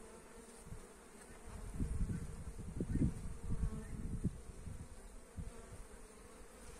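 Honeybees buzzing at the hive entrances as foragers fly in and out, some bringing in early-spring pollen. The buzzing swells as bees pass close by, loudest about three seconds in.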